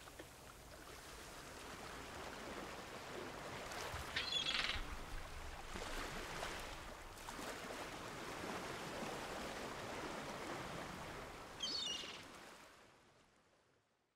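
Faint outdoor ambience: a steady soft rushing like water or surf, with two brief high bird chirps, one about four seconds in and one near the end, before it cuts off.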